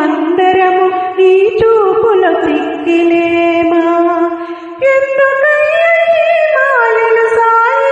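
A woman singing a Telugu devotional song to Sai Baba, holding long, sliding notes, with a short break about halfway through.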